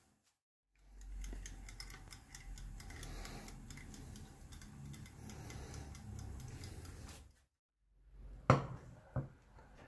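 Stainless-steel twist kitchen timer being wound to 25 minutes, a quick run of fine ratchet clicks lasting several seconds. Near the end, two sharp knocks as a wooden board is set down on a wooden table.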